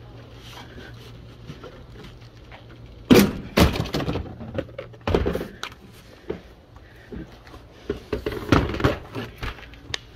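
Irregular knocks and clatter of hard plastic car trim and liftgate parts being handled. A burst of sharp clunks starts about three seconds in, and another cluster comes near the end.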